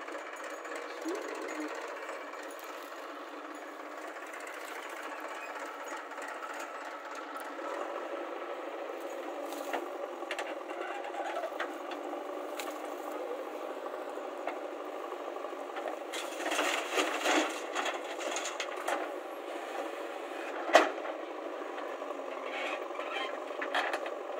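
Diesel engines of a JCB backhoe loader and a tractor running steadily while the backhoe digs soil, with scattered clanks and knocks from the bucket and arm. A burst of rattling comes about two-thirds through, and one sharp knock a few seconds later.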